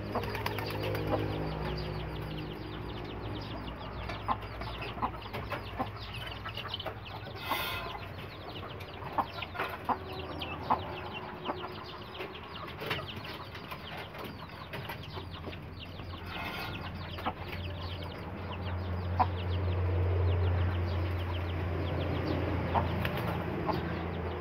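Chickens clucking while they and a rock pigeon feed from a hand, with many light clicks of pecking and two brief flutters of wings. A low hum underneath swells near the end.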